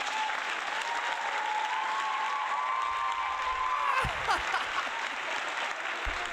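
Studio audience applauding, with one long high tone held over the clapping that slides down about four seconds in.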